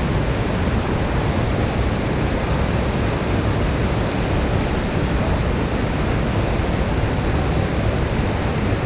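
Large waterfall close by: a steady, loud rush of falling water.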